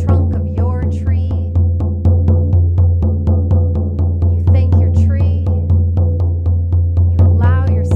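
Frame drum struck with a beater in a steady, even beat of about four strokes a second, each stroke a deep boom: the continuous drumming of a shamanic journey.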